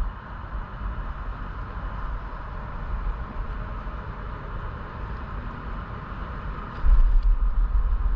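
Wind rumbling and buffeting on the microphone, much louder from about seven seconds in, over a steady faint hum.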